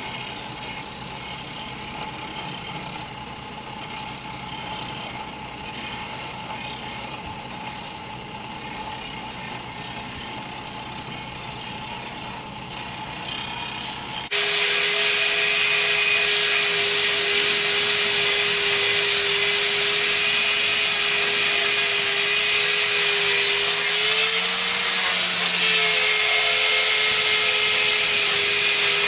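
A belt-driven grinding wheel spinning steadily while a leaf-spring steel blade is pressed against it: a hissing scrape over a faint steady hum. About halfway through this gives way abruptly to a louder handheld angle grinder with a flap disc grinding the blade, a steady whine that rises briefly in pitch and settles back near the end.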